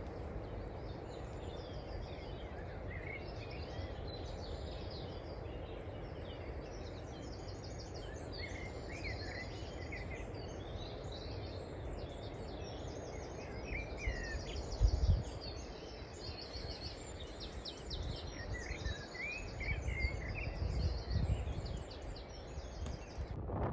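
Several birds calling and singing in quick, repeated trilling phrases and short swooping chirps over a steady outdoor wind hiss. Gusts of wind buffet the microphone a little past halfway and again several times near the end.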